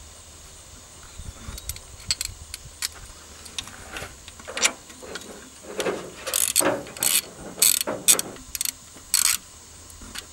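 Socket ratchet clicking as it backs off a 13 mm nut: scattered clicks at first, then a run of quick ratcheting strokes through the middle and latter part.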